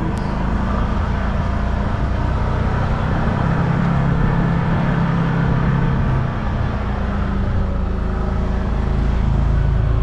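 A vehicle's engine running steadily while driving up a grassy hillside, heard from on board with rough rumbling noise; the engine note swells louder for a couple of seconds around the middle, then eases off briefly.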